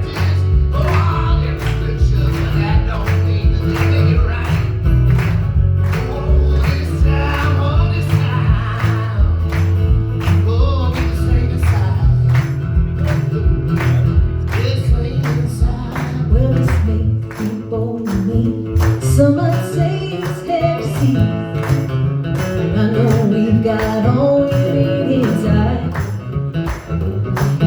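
Live band playing a song: a steady drum beat under bass, guitar and singing. The low bass drops away about two-thirds of the way through while the beat and singing carry on.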